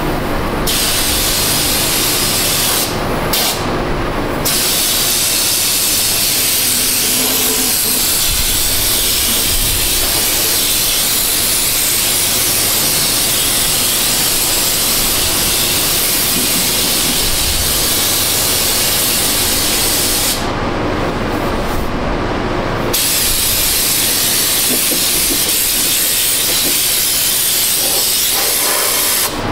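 Pneumatic undercoating spray gun atomising Fluid Film oil rust-proofer with a loud, steady hiss of compressed air and spray. The trigger is let off briefly a few times near the start and for about two seconds around two-thirds of the way through.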